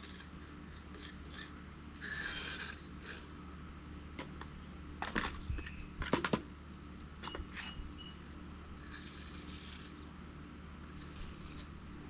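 Steel tuck-pointing trowel scraping and rubbing mortar into narrow joints between travertine pavers, in short uneven strokes, with a few sharp clicks of the trowel on stone about five to six seconds in.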